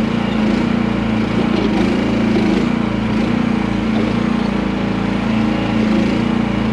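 Small gasoline engine of a QH13R micro mini excavator running steadily.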